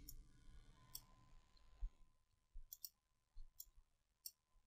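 Faint computer mouse clicks, about six of them scattered over near silence.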